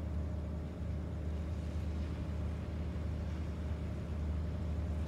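Steady low mechanical drone, like an engine running, with a faint hiss over it.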